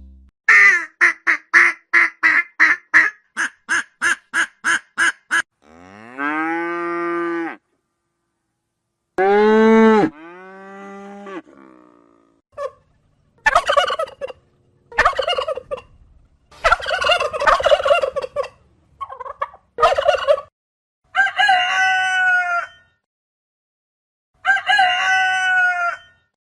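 A sequence of poultry calls: a rapid pulsed run of about three calls a second for the first five seconds, then single arching calls, then a series of shorter calls.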